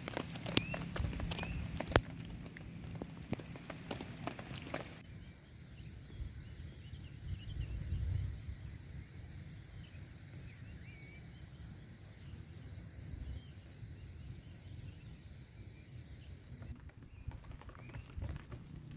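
Raindrops tapping and dripping irregularly for the first few seconds, with birds chirping. Then a steady high-pitched insect drone sets in, with a few faint bird chirps, and cuts off shortly before the end.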